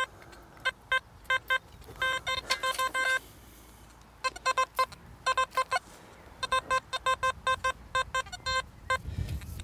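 XP Deus metal detector, fitted with an elliptical coil running at 74 kHz, giving rapid runs of short electronic beeps as the coil sweeps back and forth over a target in iron-littered soil. The beeps come in clusters with a couple of short pauses between sweeps.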